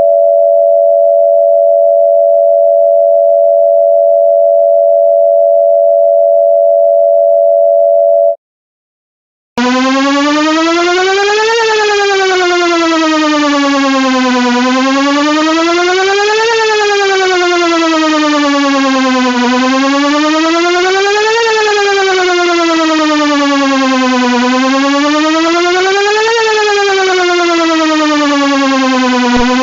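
Electronic warning siren tones: two steady pitches held together for about eight seconds, then, after a short break, a buzzy wail that slides slowly up and down, one rise and fall about every five seconds.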